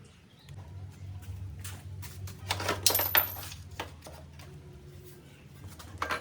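Metal tools and parts clinking and clattering, in a burst about three seconds in and again briefly near the end, over a steady low hum.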